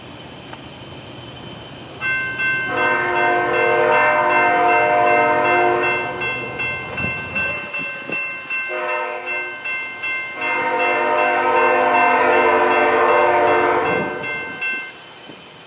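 Approaching freight locomotive's air horn sounding several notes at once as a crossing warning. Two long blasts, starting about two seconds in and again about ten seconds in, with a weaker, wavering stretch between them, and it cuts off near the end.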